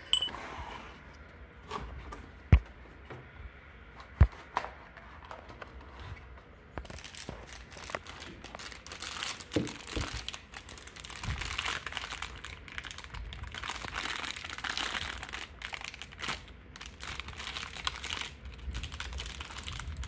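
Two sharp knocks less than two seconds apart, then, from about a third of the way in, continuous crinkling and tearing as a foil anti-static bag is pulled open and unwrapped.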